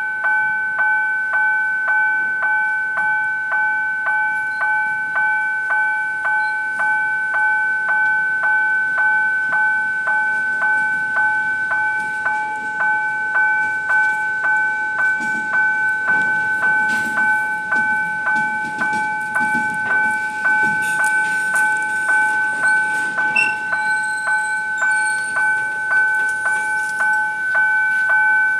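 Level crossing warning bell ringing at about two strokes a second, a high ringing tone. Under it, a freight train's wagons roll past with a low wheel rumble and clacks over the rail joints, loudest in the middle.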